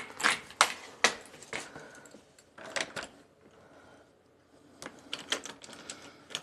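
Scattered light clicks and taps from a hand handling the phone and a metal doorknob, with a quiet lull in the middle and a quick run of clicks near the end.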